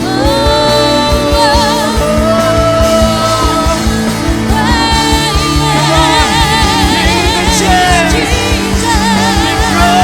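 A worship band playing a contemporary Christian praise song, with a steady drum beat and held bass and chords under a singer's long, wavering held notes.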